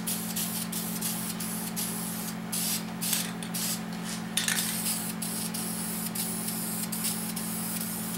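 Aerosol spray paint can hissing steadily as paint is sprayed, broken by a few brief pauses where the nozzle is let off, over a steady low background hum.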